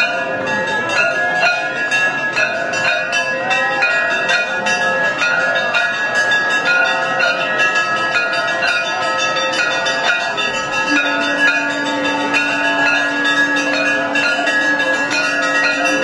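Temple bells ringing continuously, struck many times a second so their tones overlap into one dense clangour. A steady low tone joins about eleven seconds in.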